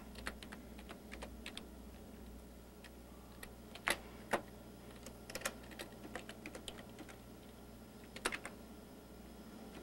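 Computer keyboard keys clicking in an uneven run of keystrokes as an email address is typed, mostly soft taps with a few sharper clacks. A faint steady low hum runs underneath.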